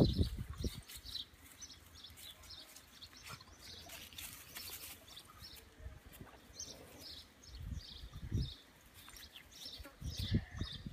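Small birds chirping repeatedly in short high notes, with a few brief low rumbles at the start, about eight seconds in and about ten seconds in.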